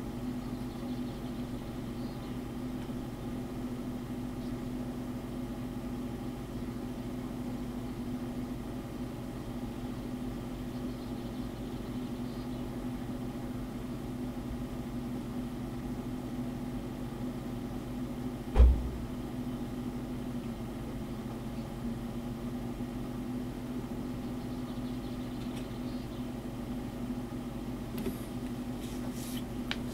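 Steady low hum of background room or machine noise, with one short low thump about two-thirds of the way through and a few faint clicks near the end.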